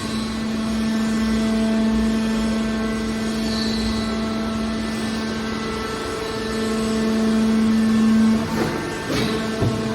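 Hydraulic baler press for aluminium cans running: a steady hum from its motor and hydraulic pump that grows louder for a couple of seconds about two-thirds of the way through, followed by a few short clanks near the end.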